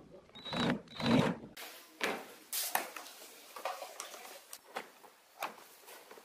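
Cordless drill spinning a screwdriver bit in two short bursts as it backs screws out of a metal amplifier case. At about a second and a half this gives way to sharp clicks and knocks of a plastic tool case being set down and handled.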